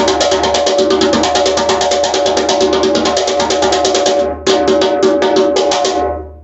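Khadi-wood djembe with a water buffalo calfskin head played by hand in a fast, even roll of sharp strokes. The roll breaks a little after four seconds in, picks up for a few more strokes, then stops and rings out near the end.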